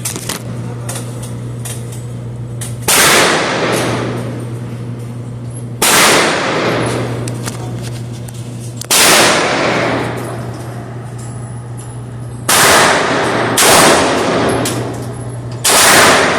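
Single gunshots fired one at a time, six in all, mostly about three seconds apart with two closer together near the end. Each shot is followed by a long echoing decay. A steady low hum sounds between the shots.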